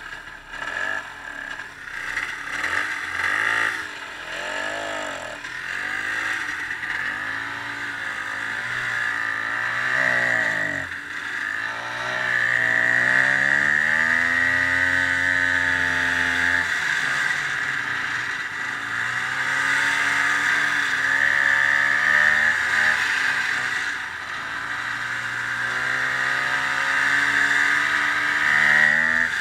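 Ski-Doo snowmobile engine running under way, its pitch rising and falling again and again with the throttle, with a long climb in pitch about halfway through. A steady high whine runs under the engine.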